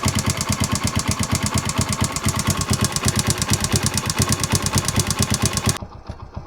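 Alpha moped's 125 cc single-cylinder four-stroke engine idling with a loud, rapid, even ticking, the valve-train clatter heard before the valve clearances were opened up. Near the end it cuts abruptly to the same engine running quieter.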